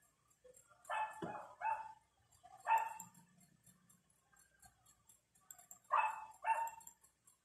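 A dog barking in short, separate barks: three in quick succession about a second in, one more near three seconds, and two about six seconds in.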